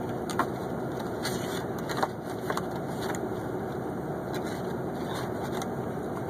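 Steady low hum of a running motor, with a few faint clicks about half a second and two seconds in.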